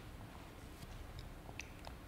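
Quiet room tone with a few faint small clicks.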